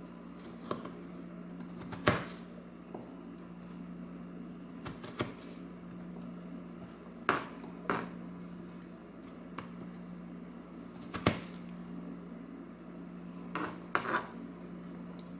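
Serrated kitchen knife cutting through potato and knocking on a plastic cutting board: about a dozen irregular sharp knocks, some in quick pairs, over a steady low hum.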